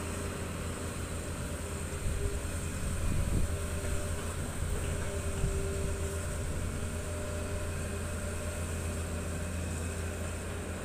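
Hitachi ZX200 excavator's diesel engine running steadily as the machine swings and works its boom. A faint higher whine rides over the drone, and the engine gets louder for a couple of seconds about two seconds in.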